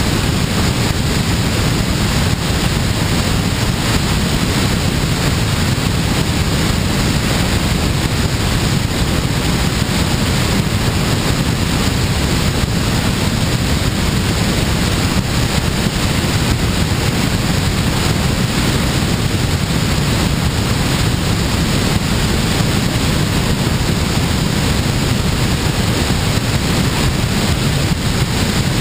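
Steady, loud rush of airflow over a wing-mounted camera on a glider in flight: wind buffeting the microphone, strongest in the low rumble and unchanging throughout.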